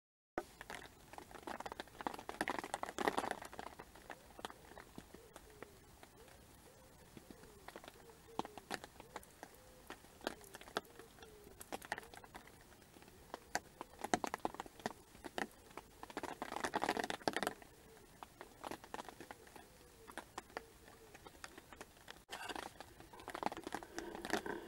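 Rain pattering in irregular drops, with a few louder, denser spells.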